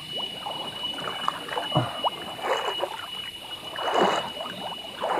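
Water splashing and sloshing in several irregular bursts as a woven bamboo fish trap is handled and lifted out of a shallow stream, with water draining through its slats. A steady high insect drone runs behind.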